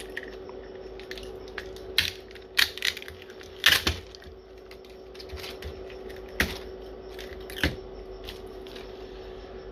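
Handling noise: scattered sharp clicks and taps, about six in all, the loudest near the middle, over a steady hum.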